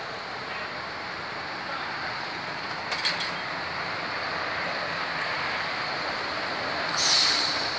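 Steady road-vehicle noise from a truck and bus, with a brief rattle of clicks about three seconds in and a short, loud hiss near the end.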